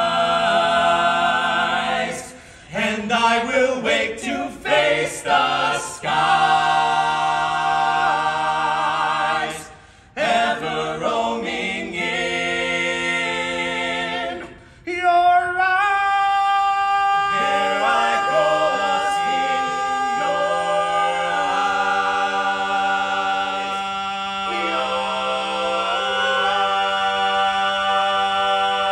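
Mixed barbershop quartet singing a cappella in close four-part harmony: sustained chords broken by a few short phrases, then one long held chord through the second half, the song's closing tag.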